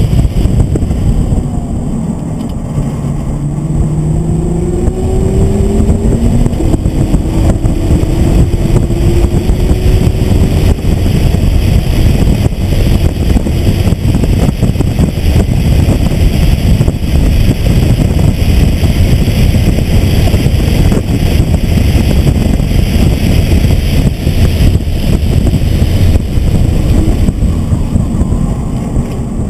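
Nissan GT-R's twin-turbo V6 heard from inside the cabin while lapping a race track: in the first few seconds the engine's pitch climbs several times as it accelerates through the gears, then a steady loud mix of engine, wind and road noise at high speed.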